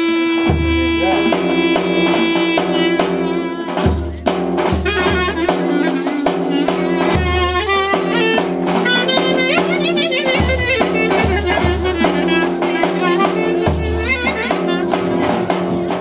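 Thracian wedding music: a clarinet playing a melody in long held and ornamented notes over deep strokes of a davul bass drum and the quicker beat of a hand frame drum.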